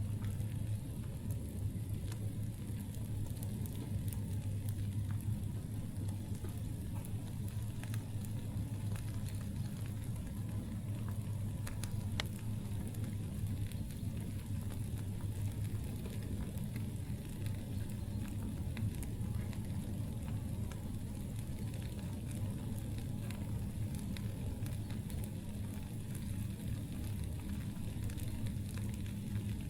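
Wood campfire crackling steadily, with scattered sharp pops and snaps, over a constant low hum.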